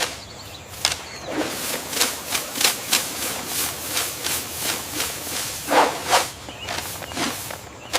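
An irregular series of short scraping and brushing strokes, roughly two to four a second, with a faint hiss underneath, like hand work on debris or a surface.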